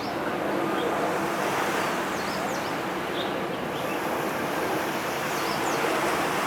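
Steady outdoor wash of wind and water noise, with a few faint short high chirps.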